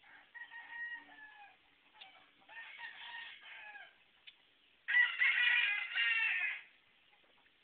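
Roosters crowing three times, each crow ending in a falling note, the third crow much louder and closer than the first two.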